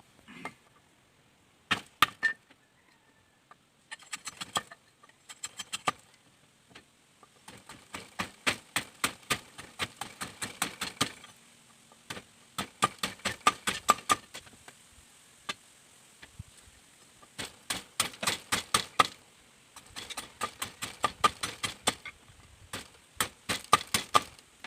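Bamboo being cut with a blade: quick runs of sharp wooden strikes, several a second, broken by short pauses.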